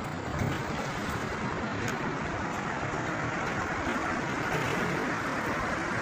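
Concrete mixer truck running at the pour, a steady noise without clear rhythm.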